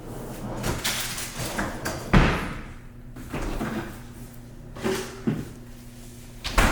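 Kitchen cupboard or door handling: a sharp knock of a door shutting about two seconds in, with softer knocks and clatter before and after.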